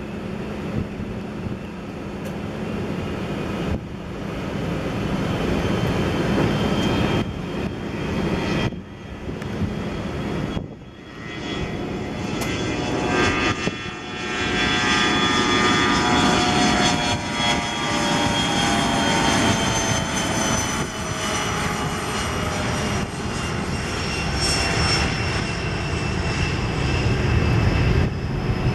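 Twin rear-mounted turbofans of a regional jet at takeoff thrust during the takeoff roll, growing louder over the first few seconds. From about twelve seconds in, the whining engine tones slowly fall in pitch as the jet passes and rotates, over a steady rushing roar.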